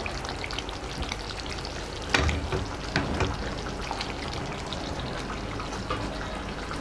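Thick eggplant masala gravy bubbling and crackling in the pan, with two louder knocks about two and three seconds in.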